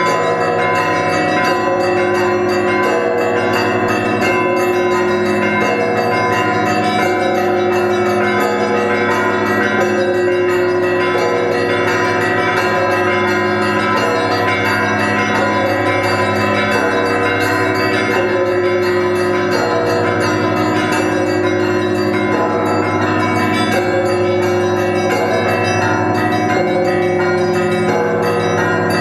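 Russian Orthodox monastery bells ringing: many bells of different pitches struck in continuous, overlapping ringing.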